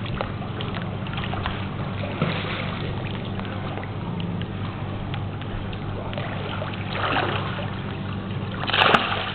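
Pool water sloshing over a steady low hum, then a short, louder splash about nine seconds in as a toddler in armbands jumps into the water.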